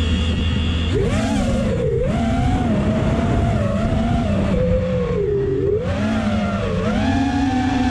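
FPV drone's brushless motors: a whine held at a steady pitch at first, then from about a second in swooping up and down again and again with the throttle, over a rush of wind noise.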